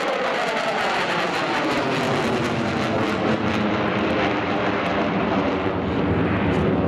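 Eurofighter Typhoon FGR4's twin Eurojet EJ200 turbofans running in afterburner, a loud, steady jet roar with tones sliding down in pitch as the fighter climbs away, the low rumble growing stronger near the end.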